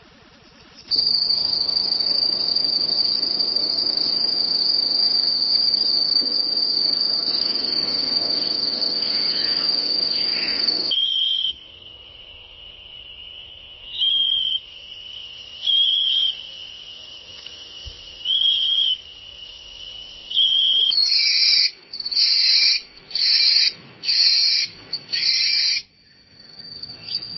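Night forest ambience dominated by crickets. A loud, steady, high-pitched trill runs for about ten seconds, then a softer, lower trill follows. From about 21 seconds in comes a run of separate loud chirps, a little over one a second.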